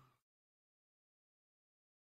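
Silence: a last trace of sound fades out within the first moment, then there is nothing at all.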